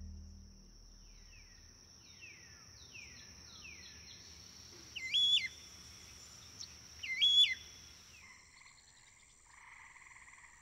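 Wetland and woodland wildlife ambience. A steady high insect drone runs under a string of short falling bird chirps and two louder rising-and-falling calls about two seconds apart. Near the end a pulsing frog trill sets in.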